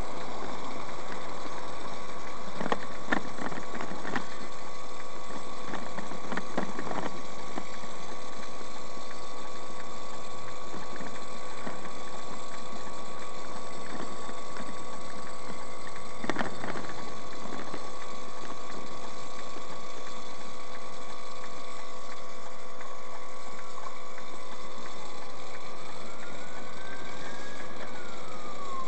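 Steady road and engine noise inside a moving car at highway speed, with a constant hum and a few brief knocks from bumps in the road. Near the end a siren sounds once, rising and then falling in pitch.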